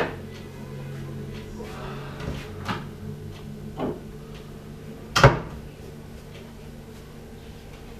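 Kitchen wall-cupboard door opened, with a few light knocks and clicks as things are handled inside, then shut with one sharp knock about five seconds in. A steady low hum runs underneath.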